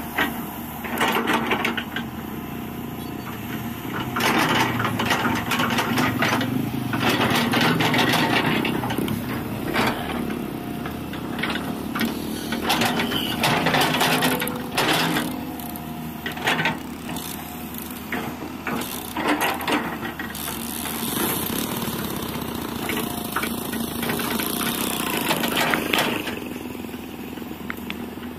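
Kobelco hydraulic excavator running, its diesel engine swelling louder and easing off in turns as it works, with frequent metallic clanks and rattles.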